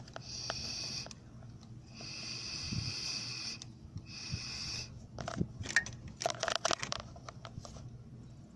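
Three airy, whistling hisses of air being drawn or pushed through a vape to make smoke for a vacuum-leak smoke test, the middle one longest. They are followed by a run of sharp clicks and rattles.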